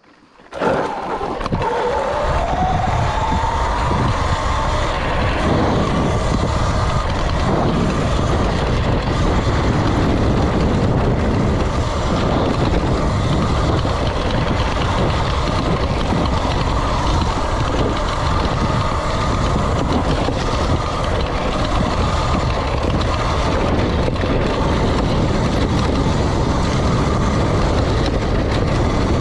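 Sur-Ron Light Bee electric dirt bike riding along a rough dirt trail. Its motor and drivetrain whine rises in pitch over the first few seconds as it pulls away, then holds steady. Under the whine there is a continuous low rumble and rattle from the ground.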